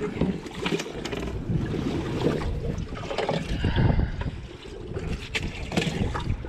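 Wind buffeting the microphone over water moving against a boat hull, with several short knocks and clicks as a fish and rod are handled over a live well.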